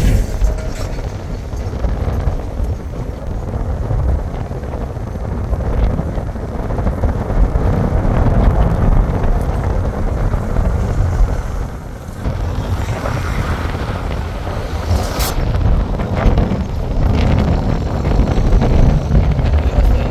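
Low, uneven rumble of a vehicle travelling on a road, with wind buffeting the microphone. There is a single sharp click about fifteen seconds in.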